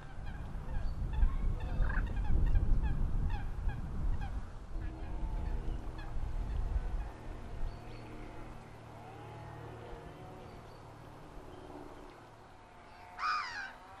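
Geese and other waterfowl calling: a busy run of short honks and calls over a low rumble, then quieter with a low steady hum, and one louder honk about 13 seconds in.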